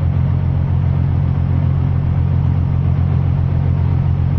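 A ferry's engines running with a steady low drone, heard on board, with a steady hiss over it.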